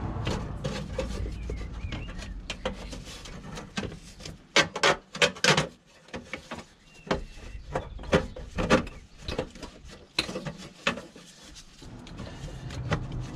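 Sharp knocks and clicks of the SMG gearbox oil cooler and its bracket being handled and pressed into their rubber mounts. The knocks come in a quick run about halfway through and again a few seconds later.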